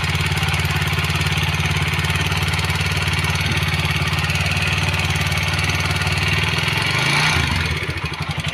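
TVS Apache RTR 160 4V single-cylinder engine idling with a ticking noise from loose tappets with too much valve clearance, which the mechanic blames for the 'kat kat kat' sound. It is briefly revved about seven seconds in, then settles to a slower idle with distinct beats.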